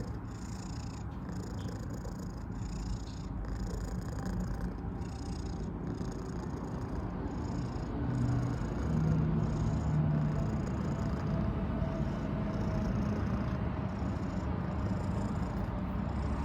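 Domestic cat purring continuously, with a slightly louder stretch about halfway through.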